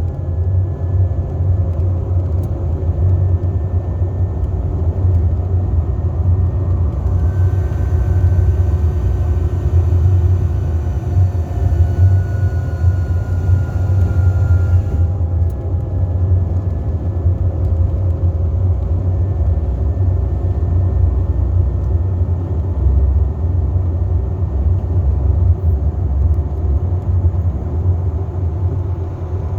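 Mercedes-Benz Travego 15 SHD coach running downhill with its retarder braking: a steady low rumble with faint whining tones above it. In the middle, extra hiss comes in and one whine slowly falls in pitch.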